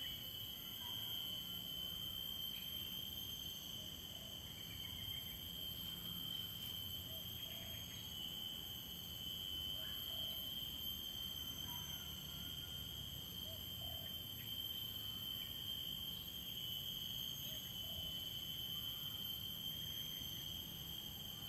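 Steady high-pitched chorus of insects, several even tones sounding at once over a faint low rumble.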